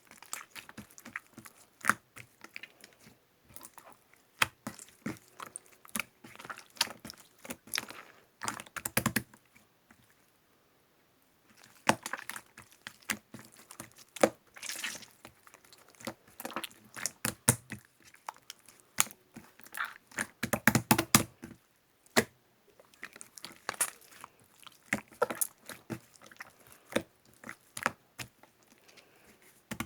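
Slime being squished and worked by hand, making irregular sticky clicks and crackles, with a brief pause about ten seconds in.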